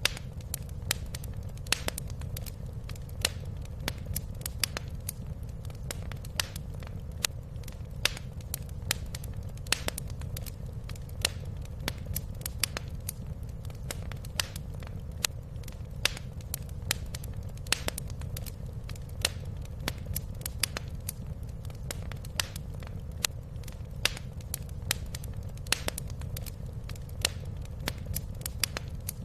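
Fire crackling in a fireplace: frequent sharp pops and snaps, irregularly spaced, over a steady low rumble.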